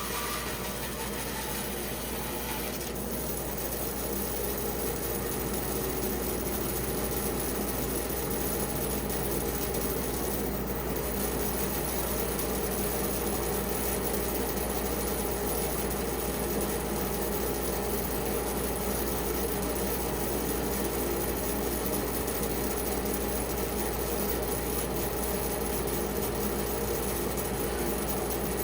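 Band saw running steadily as it cuts through a wet spalted pecan log: a continuous motor hum with blade and cutting noise, a little louder from about three seconds in.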